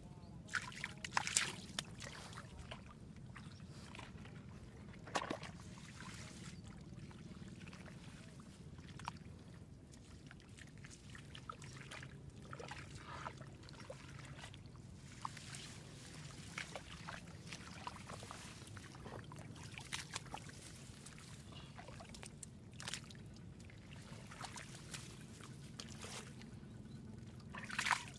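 Hands squelching and splashing in shallow muddy water, with scattered wet slaps and trickles over a steady low hum. The splashing is loudest about a second in, again around five seconds, and near the end.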